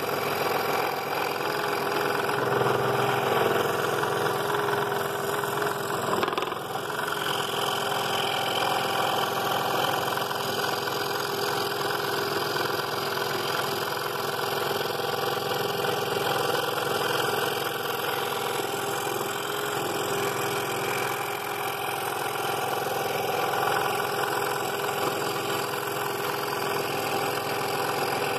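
Scroll saw running steadily, its reciprocating blade cutting a curved line through a half-inch-thick wooden blank.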